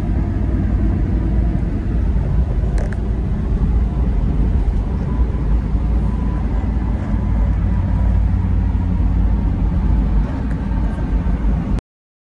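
Steady, deep road and engine rumble of a van driving at speed, heard from inside the cabin. It cuts off suddenly near the end.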